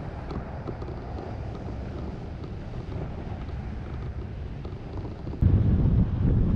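Wind rushing over the microphone of an action camera on a soaring hang glider: a steady, softer rush at first, then a sudden jump to heavy low wind buffeting about five seconds in, when the sound switches to the camera mounted behind the pilot.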